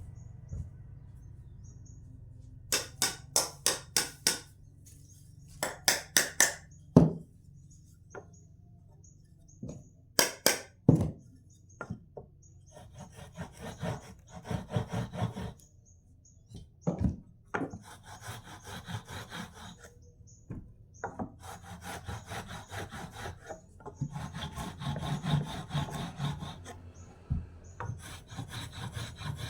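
A hand tool worked back and forth on wood in short runs of quick strokes, sawing or rasping, with a few sharp knocks in between. The strokes come closer together and run longer in the second half.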